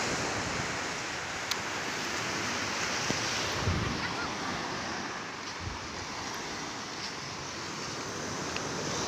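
Small sea waves breaking and washing up a sandy shore in a steady rush, with wind on the microphone giving a couple of low thumps about four and six seconds in.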